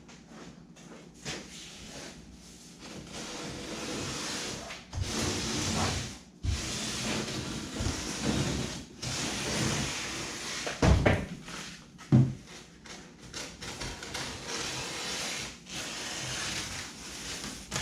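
Paper rustling and crinkling as a paper pattern is handled in a foam kayak hull, with a few dull knocks.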